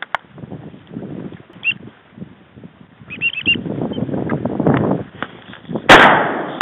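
A single shotgun blast about six seconds in, loud and sudden with a trailing decay, preceded by rustling movement. A few quick, high bird chirps come a little after three seconds.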